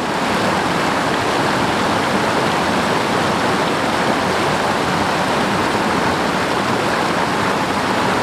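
Rocky stream rushing over boulders and small cascades: a steady rush of white water that fades in at the very start.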